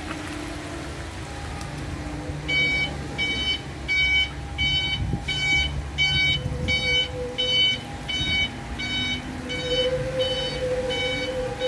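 Electric forklift's reversing alarm beeping, a steady run of about two beeps a second that starts a couple of seconds in.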